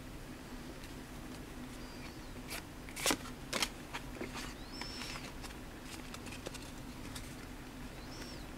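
Pokémon trading cards handled fresh from a booster pack: soft rustles and a few sharp clicks and flicks as the cards are slid apart, the loudest about three seconds in. Faint short high chirps come and go three times over a low steady hum.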